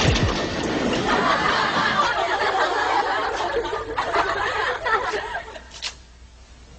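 Audience laughter, a laugh track, swelling about a second in and dying away after about five seconds.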